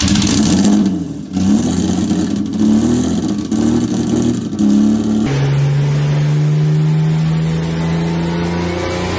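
Single-turbo VQ35HR 3.5-litre V6 in a Nissan 240SX revving hard several times with an uneven, wavering note. After about five seconds it gives way to a steadier engine note slowly rising in pitch as the car pulls, with a faint high whine climbing near the end.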